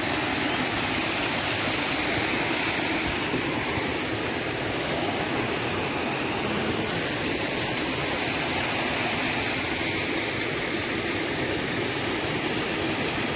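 Stream water spilling over a low concrete weir into the pool below: a steady rushing noise.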